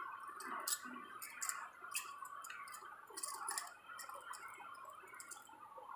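A hand mixing moist grated raw potato with chopped green chillies and coriander on a steel plate: quiet, irregular light clicks and wet handling sounds.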